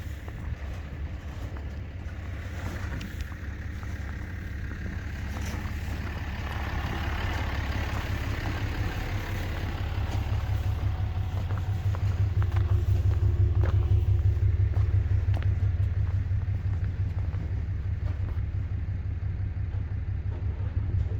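Street traffic: a vehicle's low engine rumble that builds to its loudest about two-thirds of the way through, then eases off, with tyre hiss on the road.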